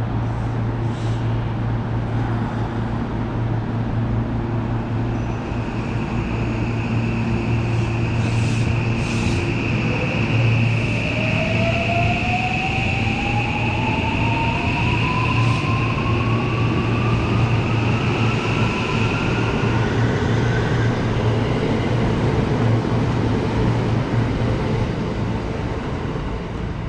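Electric commuter train pulling out of a station platform, its motor whine rising steadily in pitch for about ten seconds as it gathers speed. Underneath is a constant low hum, and a steady high-pitched tone runs through the middle.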